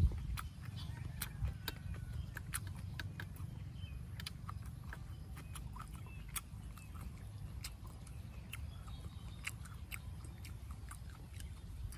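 Close-miked chewing: a man eating with his mouth, giving many small sharp clicks and smacks at an irregular pace over a steady low rumble.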